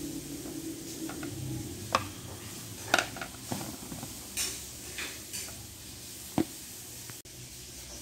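Light, scattered clicks and knocks of screwdrivers and a plastic grease tub being handled and set down on a plastic wicker chair, about half a dozen in all.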